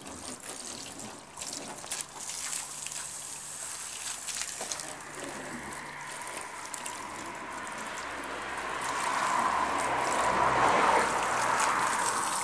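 Water from an open garden hose pouring onto a freshly waxed car bonnet and running off the paint in sheets. It swells louder about two-thirds of the way through.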